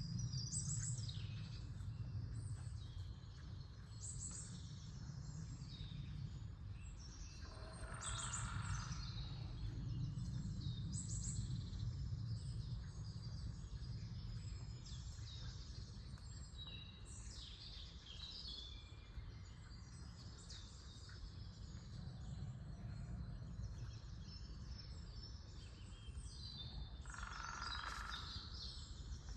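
Small songbirds singing and chirping in an early-spring forest in the morning: many short, high calls and trills overlapping throughout, over a steady low rumble. Twice, about 8 seconds in and near the end, a louder, lower sound lasting about a second and a half stands out.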